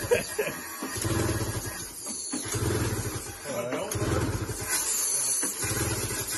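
Ski-Doo Summit snowmobile engine being cranked over in short repeated bursts, about one every second and a half, without catching. The engine has water in it after sitting sunk overnight.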